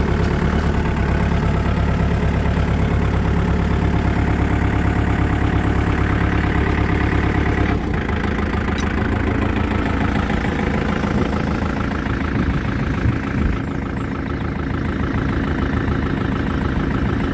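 Small tractor engine idling steadily, heard from the driver's seat. About eight seconds in, the note changes and turns quieter.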